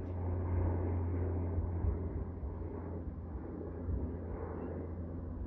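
Beechcraft King Air 350i twin turboprop climbing away after takeoff, heard from the ground as a steady low drone that eases off slightly partway through.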